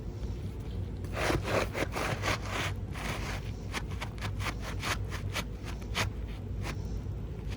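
Asphalt shingle scraping and rubbing against the gritty surrounding shingles as it is slid and worked into place, in a run of short strokes starting about a second in.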